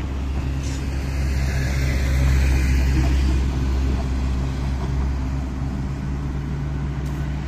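Steady low drone of heavy traffic. The last double-stack container cars of a freight train roll across the overpass and clear it, and a box truck's engine is heard on the highway below. The sound swells slightly a couple of seconds in, then eases.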